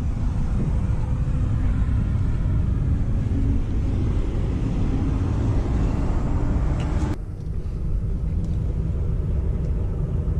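Semi truck's diesel engine idling with a steady low rumble. A higher hiss-like layer over it cuts off suddenly about seven seconds in.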